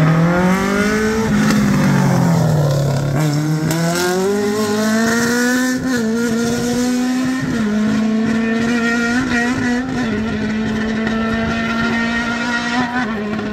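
Rally car engine revving hard as it runs along the stage. Its pitch climbs, drops about two seconds in, and climbs again; from about the middle it holds high and nearly steady, with brief small dips.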